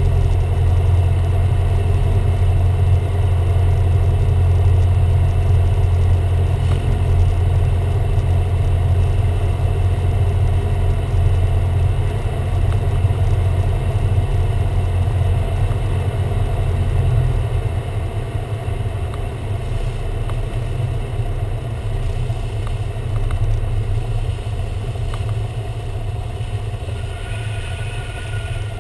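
Cessna 172R's four-cylinder Lycoming engine and propeller running at low power through the approach, flare and landing roll, heard from inside the cabin. The steady low drone eases and turns rougher a little over halfway through.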